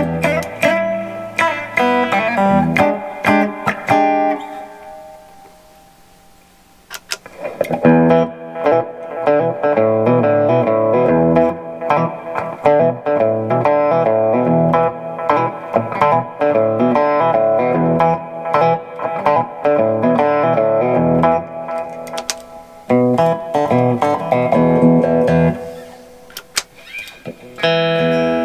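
Monoprice Indio Retro Classic Tele-style electric guitar played through a combo amp: picked notes and chords, with one note left ringing and fading out about five seconds in before the playing picks up again, and a fresh strummed chord near the end.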